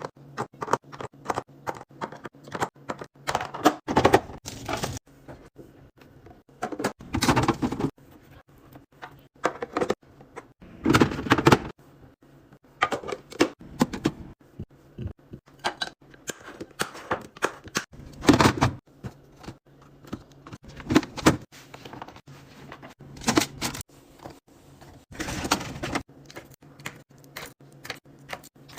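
Food containers and packaging being handled while a fridge is stocked: a busy run of clicks, taps and knocks as items are set down and lids closed, with short bursts of rustling every few seconds.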